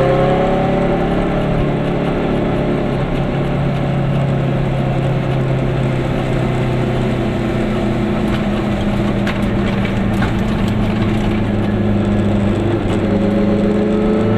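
Goggomobil's small two-stroke twin engine pulling the car along at a steady note, with road noise; the engine note climbs in pitch near the end as the car speeds up.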